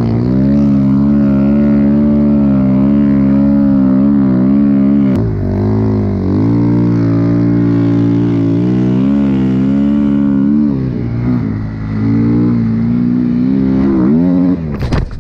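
Snowbike engine (a dirt bike on a ski-and-track kit) running hard through powder, its pitch rising and falling over and over as the throttle is worked, with short let-offs about five and eleven seconds in. Near the end it cuts off abruptly.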